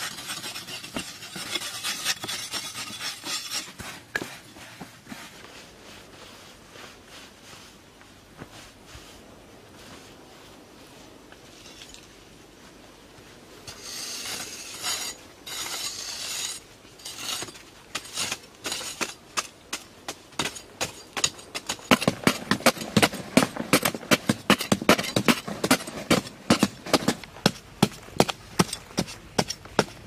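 Hand tools scraping and chopping into packed earth: knife and hoe blades cutting and scraping soil. After a quieter stretch, the second half turns into a fast run of sharp strikes into the ground, several a second, louder than the scraping before.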